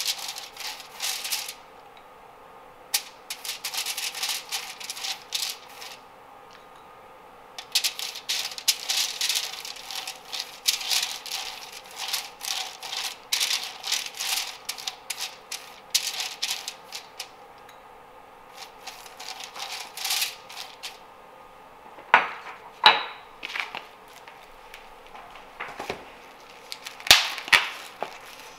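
Silicone pastry brush stroking melted butter over aluminium foil on a baking sheet: rapid crinkly, scratchy strokes in several bursts of a few seconds each. Near the end come a few louder knocks and crinkles.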